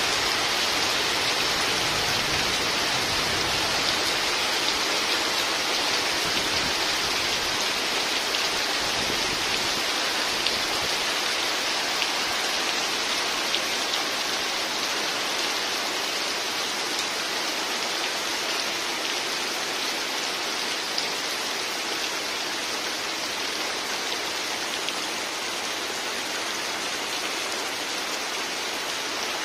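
Heavy rain pouring steadily onto river water, boat roofs and leaves: a dense, even hiss, with a low rumble in the first third that fades away.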